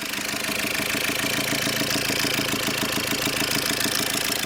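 Freshly rebuilt Tata Zest engine running steadily at idle just after starting, with an even, fast pulse. The mechanic judges its sound completely OK.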